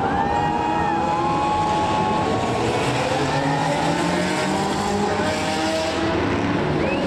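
Several supercar engines running and revving together as the cars drive on a race track, their pitches gliding up and down, with a short tyre squeal near the start.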